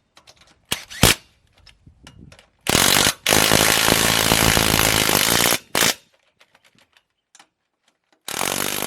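Impact wrench running lug nuts onto the wheel studs: a few metal clicks, then a hammering run of about three seconds, a brief burst, and another run starting near the end.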